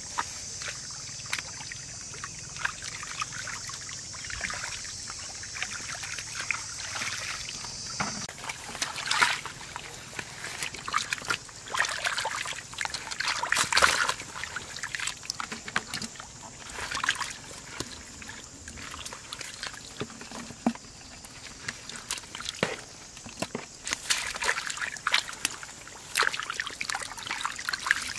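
Shallow muddy water sloshing and splashing in irregular bursts as a plastic basket is scooped through it and hands work the mud. A steady high hiss runs under the first eight seconds or so, then stops abruptly.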